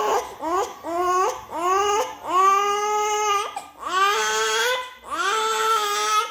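A four-month-old baby crying: a run of short rising cries, then three longer drawn-out wails.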